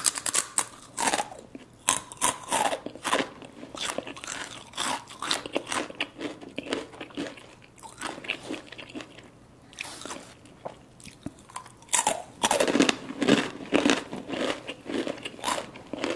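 Takis Blue Heat rolled tortilla chips being bitten and chewed: a run of sharp, dry crunches, with the heaviest crunching about three-quarters of the way through.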